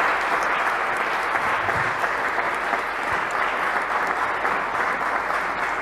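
Conference audience applauding steadily at the end of a talk.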